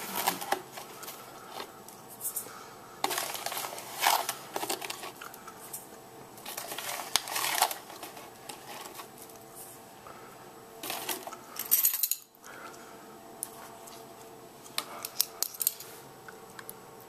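Metal measuring spoon scooping granulated sugar and tipping it into a stainless steel mixing bowl: clinks of metal against metal and glass, scraping and paper rustling, in several separate spells of clatter, with a quick run of small clicks near the end.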